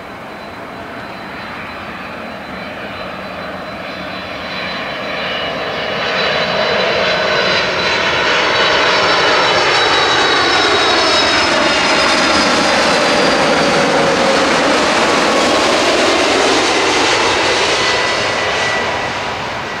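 Boeing 747-400D airliner's four jet engines at approach power as it flies low overhead on final approach to land, gear down: a whining rumble that grows steadily louder, peaks about halfway through, slides down in pitch as the jet passes, and starts to fade near the end.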